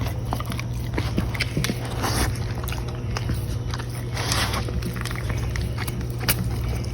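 A dog licking and chewing peanut butter out of a rubber Kong toy, with irregular clicks and smacks over a steady low hum.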